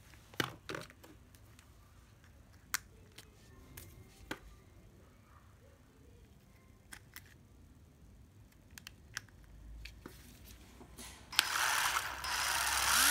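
Nati 12V cordless screwdriver being handled, with scattered clicks and knocks. About eleven seconds in, its motor is trigger-tested and runs with a loud whir that speeds up near the end.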